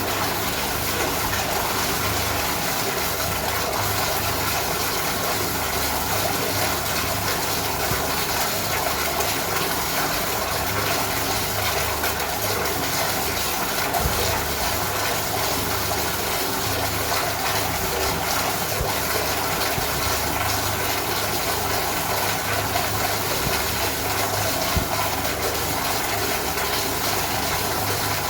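Toilet flush running on without stopping: a steady rush of water with a wavering low rumble beneath it, the flush failing to shut off.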